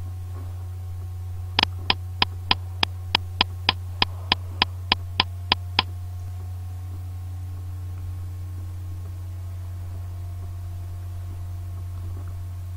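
Steady low electrical hum, with a run of about fourteen sharp, evenly spaced clicks, roughly three a second, from about one and a half to six seconds in.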